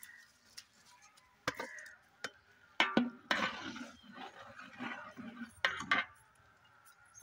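Metal ladle stirring rice into boiling water in a large aluminium cooking pot, with irregular clinks and scrapes of metal on the pot.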